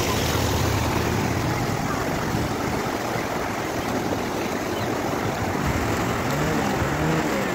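Steady rush of floodwater flowing fast across a road.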